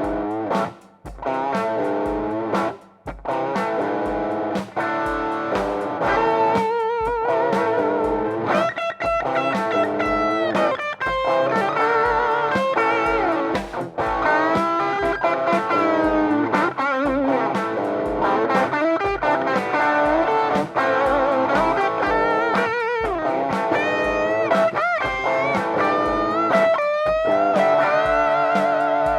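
Hardtail S-Type electric guitar playing a lead line of single notes, with string bends and wide vibrato on held notes. Near the end it settles on a chord that rings out.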